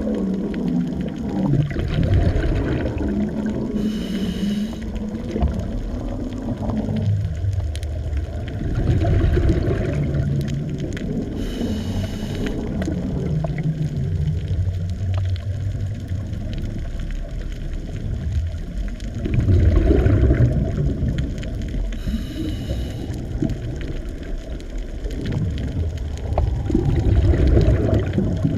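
Underwater ambience: a deep, steady wash of water with low calls that slide up and down in pitch. A brief high, buzzy sound recurs every eight to ten seconds.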